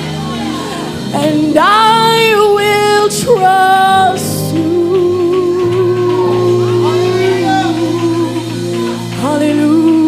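Live gospel worship music: singers hold long, wavering notes over a band with sustained keyboard chords, then a voice comes in again near the end.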